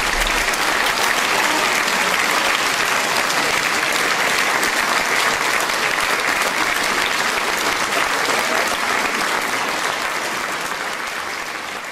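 A large audience applauding: dense, steady clapping that begins to die down near the end.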